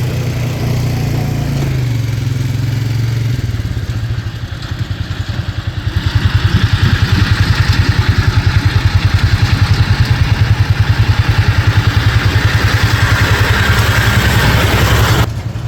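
Farm tractor running while pulling a round baler as it picks up hay windrows, with a steady low engine hum. From about six seconds in, a fast, even pulsing from the machinery joins it.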